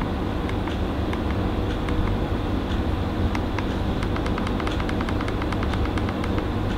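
Steady low background hum, with a string of light, quick clicks as the RM200QC's navigation button is pressed over and over to step through its menus; the clicks come faster in the second half.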